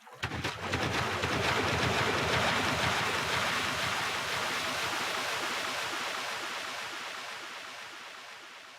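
Sci-fi sound effect: a rushing noise like surf or a steady torrent that comes in suddenly, swells over the first couple of seconds, then slowly fades away.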